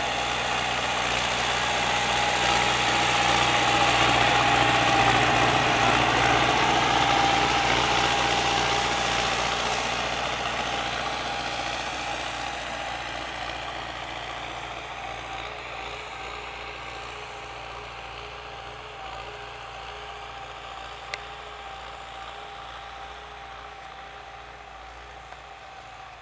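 MTZ-50 tractor's four-cylinder diesel engine running steadily while pulling a mounted plough. It grows louder as the tractor passes close by about five seconds in, then fades steadily as it pulls away.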